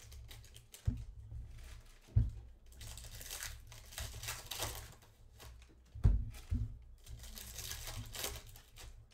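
Foil trading-card pack wrapper crinkling and tearing as it is ripped open by hand, with a few dull thumps against the table.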